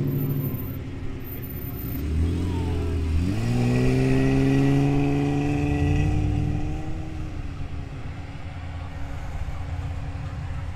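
Off-road vehicle engine driving past: one engine note fades away at the start, then another rises in pitch about three seconds in as it accelerates, holds for a few seconds and dies away.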